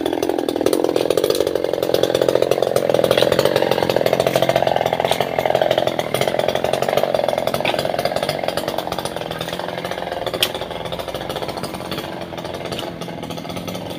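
Chainsaw bucking a sengon laut log, its engine note rising and falling as the chain bites. It runs loudest for the first six seconds, then eases a little.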